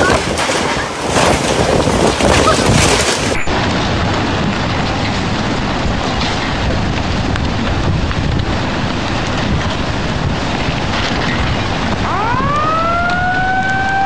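Gusty wind and rain buffeting the microphone for the first few seconds, then a steady rushing roar of tsunami floodwater. About twelve seconds in, a municipal tsunami-warning siren starts, rising in pitch and then holding one tone.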